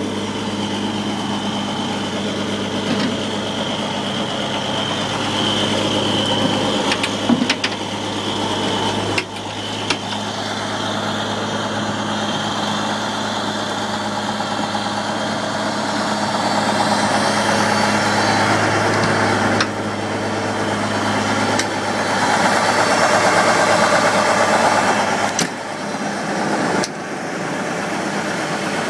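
1989 E-One Hurricane pumper fire truck's engine running steadily at idle, with a few sharp clicks and knocks and a louder stretch about three quarters of the way through.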